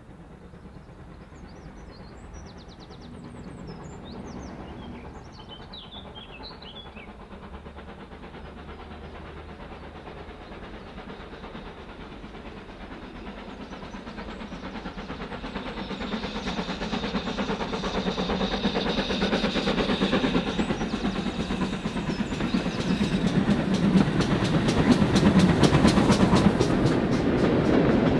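A train on a heritage railway approaches and grows steadily louder, with wheels clicking rapidly over the rail joints as it draws level near the end. Birds chirp faintly during the first few seconds.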